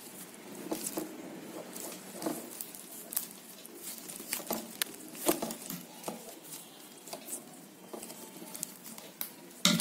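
Plastic basket-weaving wire handled and knotted by hand: irregular light clicks and rustles as the strands rub and snap against each other, with a louder knock near the end.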